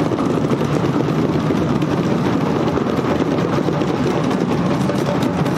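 Many djembes and other hand drums played together by a drum circle: a dense, steady rumble of overlapping hand strikes with no gaps.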